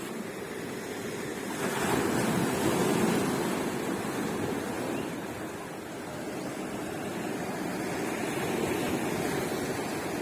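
Sea waves breaking and washing onto a beach: a steady wash of surf, with a louder wave surging in about two seconds in and easing off, and a gentler swell near the end.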